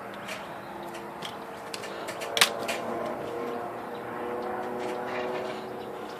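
Small metal parts of an IBM Selectric typewriter's cycle clutch mechanism clicking and tapping as the shaft is worked back into place, with one sharp loud click about two and a half seconds in, over a steady faint hum.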